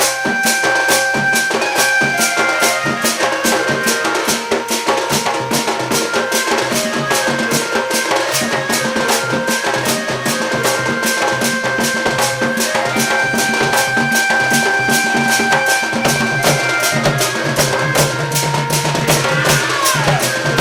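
Instrumental accompaniment for a Sambalpuri dand dance-drama: a steady drumbeat under sustained melody notes, with a falling pitch slide near the end.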